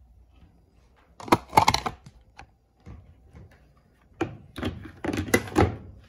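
Plastic parts of a Panasonic washing machine being handled, clattering and clicking: a quick cluster of knocks about a second in and another near the end.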